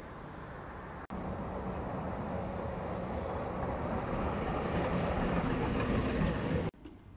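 Street traffic: a passing vehicle's engine rumble and road noise grow louder for several seconds, with abrupt breaks about a second in and shortly before the end.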